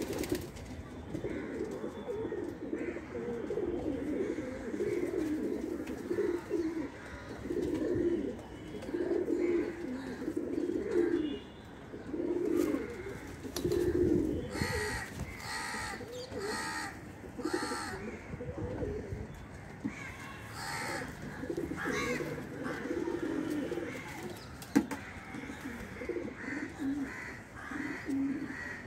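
Domestic pigeons cooing over and over in low, repeated phrases. About halfway through comes a cluster of several brief, sharper, higher-pitched calls.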